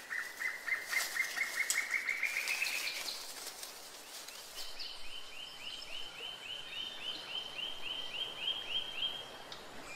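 Rainforest ambience: a rapid series of short chirping calls that climbs slightly in pitch and stops about three seconds in. About a second and a half later, a higher series of chirps starts at about four a second and continues until just before the end.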